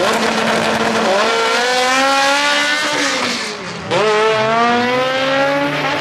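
Honda drag cars launching off the start line and accelerating hard down the strip. The engine note climbs in pitch through each gear, then drops briefly at a gear change a little under four seconds in before climbing again.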